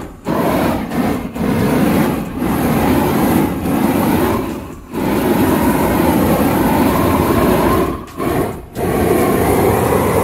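Homemade flex sander running loudly against carved wood, with several brief dips in its noise.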